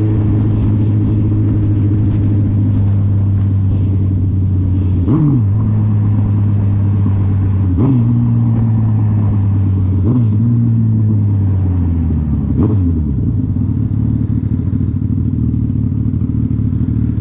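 Suzuki Hayabusa's inline-four engine running while the bike slows, its pitch jumping sharply and falling back four times as it is shifted down through the gears. It settles to a lower, steady note as the bike comes to a stop, with steady wind hiss.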